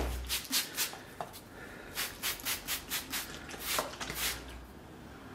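Hands rubbing and flexing a strip of vegetable-tanned leather: a run of quick swishing rubs, about four a second in the middle, with a few more before and after.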